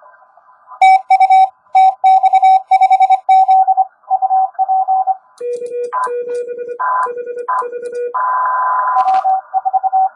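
Morse code (CW) tones from an Index Labs QRP+ transceiver on 10 m. A loud keyed tone sends dots and dashes for the first few seconds, then Morse at different, lower and higher pitches follows over band hiss, and the first tone resumes near the end.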